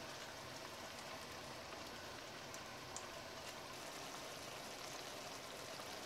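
Tomato and vegetable stew base frying in an enamelled cast-iron pot: a faint steady sizzle with a few small pops.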